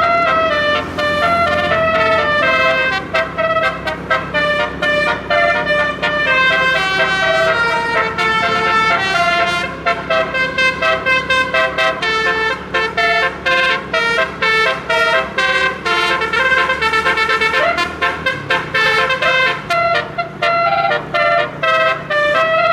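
Bus 'telolet' multi-tone air horn, a 12-note set, playing a long, continuous melody. Held notes come first, then a run of quick short toots. A vehicle engine rumbles underneath.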